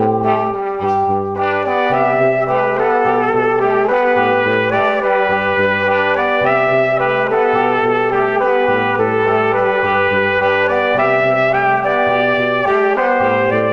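Instrumental background music with a brass melody over a bass line that steps to a new note every half second or so.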